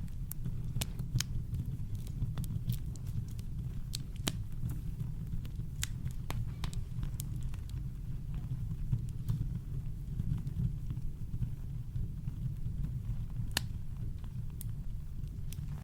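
Campfire crackling: scattered sharp pops and snaps, a few louder than the rest, over a steady deep rumble of brown noise.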